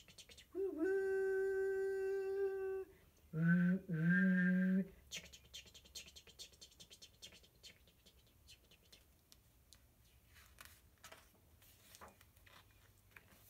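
A woman's voice imitating a steam train's whistle: one long steady hoot held about two seconds, then two shorter, lower hoots. Near the end, faint paper rustling as a picture-book page is turned.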